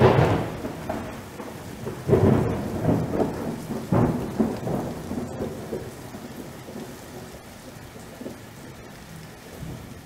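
Thunder rolling over steady rain: loud rumbles at the start, about two seconds in and about four seconds in, then easing to a steadier rain hiss.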